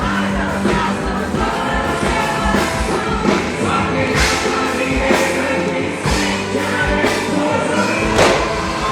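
Loud music with sung vocals and choir-like backing voices over a steady beat.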